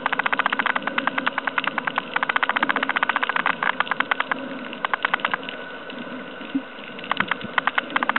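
Underwater noise picked up through the water: dense, rapid clicking and crackling over a low hum, thinning out for a moment about two-thirds of the way through.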